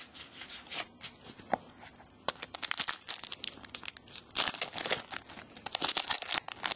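Shiny foil wrapper of a trading card pack being torn open and crinkled by hand, in several short rips and rustles.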